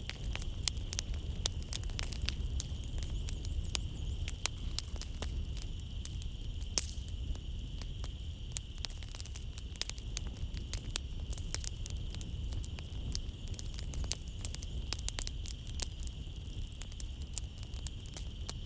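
Wood fire in a fireplace crackling, with many sharp irregular pops and snaps over a low rumble of the flames. Behind it runs a steady high-pitched trill of night insects.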